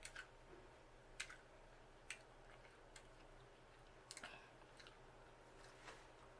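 Quiet eating sounds: a few faint, sharp clicks and smacks, about one a second, from a person chewing hot sausage.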